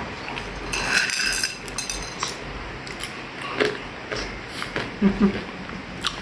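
A metal spoon clinking and scraping against a bowl of granola and banana as it is eaten: a handful of light clinks, the clearest about a second in.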